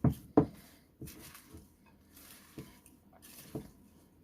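Kitchen utensils knocking against a bowl while a dressed kale salad is tossed: two sharp clicks close together, then a few softer scattered knocks over faint rustling of leaves.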